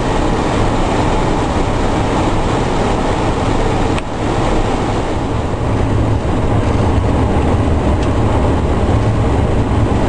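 Boeing 727-200 cockpit noise on approach: a loud, steady rush of airflow with a low engine rumble underneath, briefly dipping about four seconds in.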